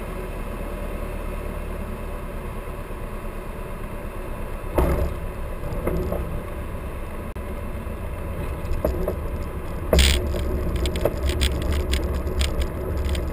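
Mooney M20J's four-cylinder Lycoming IO-360 engine idling, heard from inside the cockpit while the plane rolls along the runway. A sharp jolt comes about five seconds in and a louder one about ten seconds in, followed by quick clattering rattles from the airframe.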